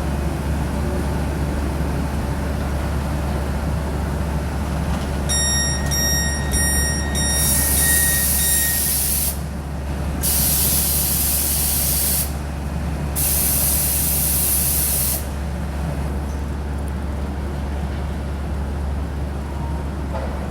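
Electric train standing at a station platform, humming steadily. About five seconds in comes a couple of seconds of rapid high electronic beeping, then two hisses of released compressed air, each about two seconds long.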